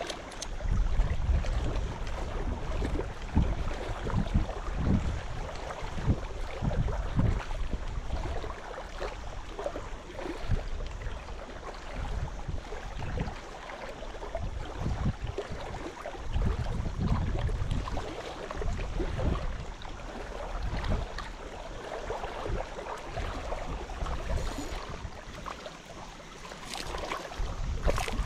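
Wind buffeting the microphone in uneven gusts, a low rumble that swells and fades every second or two.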